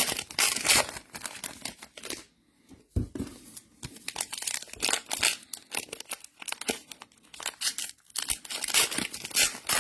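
Trading-card pack wrappers being torn open and crinkled by hand, in a rapid run of irregular crackling rips with a short pause partway through.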